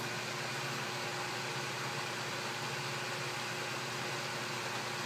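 Atlas 10D metal lathe running steadily under power, its motor belt in high and first gear with the spindle turning at about 470 RPM: an even motor hum with belt and pulley drive noise.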